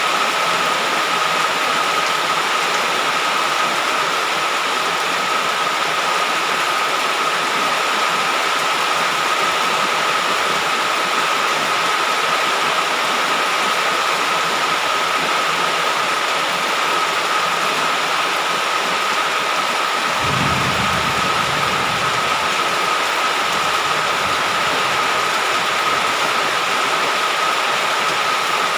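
Heavy rain falling in a steady downpour, with a steady high-pitched tone running through it and a low rumble for about two seconds, about twenty seconds in.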